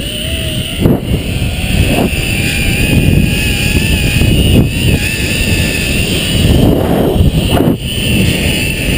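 Flying fox trolley pulleys running fast along the steel cable, with a steady, slightly wavering high whine, over heavy wind rush on the helmet-mounted camera's microphone. A few brief bumps break in during the ride.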